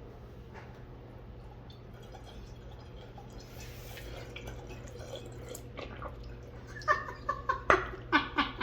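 Water being poured hastily into the McCulloch canister steam cleaner's tank. A faint trickle gives way to a quick run of loud gurgling glugs in the last second and a half as the tank fills.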